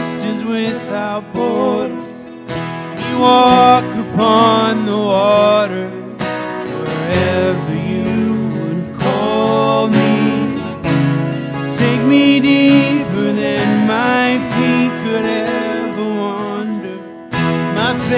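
Two acoustic guitars strummed with men singing a worship song into microphones; the playing dips briefly near the end and picks up again.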